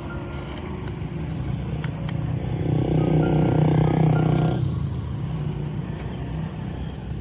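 A motor running with a steady buzz. It grows louder in the middle and cuts off suddenly about four and a half seconds in, leaving a low hum.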